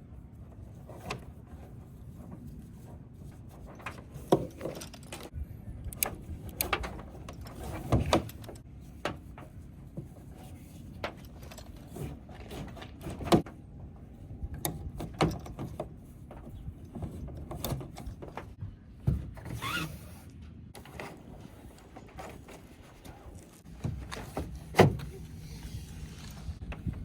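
Irregular clicks and knocks from handling small metal gear and rope, carabiners among it, with one short rising squeak about twenty seconds in.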